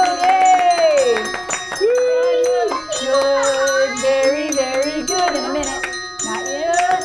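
Bells ringing in many quick, repeated strikes over voices singing held notes.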